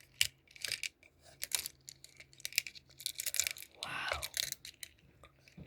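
Small plastic beads for crunchy slime being added to slime, making irregular crisp clicks and crackles.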